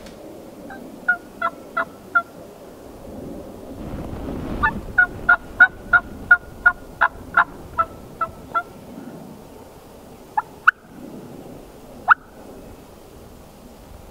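Turkey yelping: a run of five evenly spaced yelps, then after a pause a longer run of about a dozen. Two sharp, rising single notes follow near the end.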